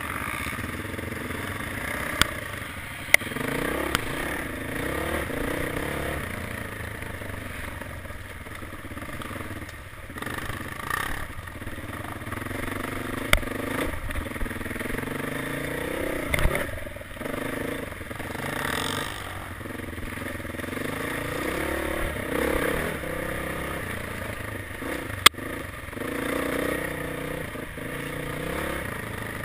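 Dirt bike engine running and revving as it is ridden over rough trail, its pitch rising and falling with the throttle. A few sharp knocks and clatter cut through, the loudest near the end.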